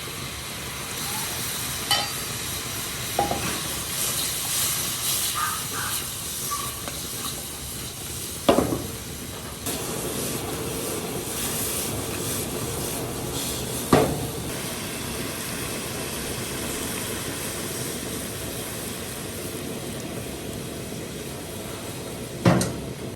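Food frying in hot oil in a pan, a steady sizzle, with three sharp knocks, as of a utensil against the pan.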